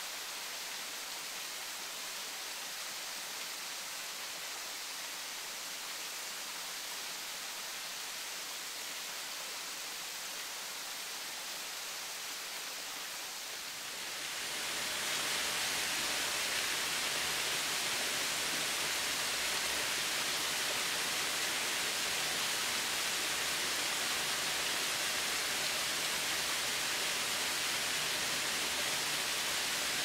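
Waterfall in full flow, its falling water making a steady rushing hiss. About halfway through it becomes louder and fuller, with more low sound in it.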